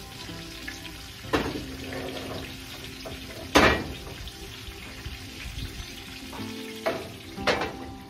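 Chicken frying in a cast iron skillet, a steady sizzle, with four sharp knocks over it, the loudest about midway. Background music plays underneath.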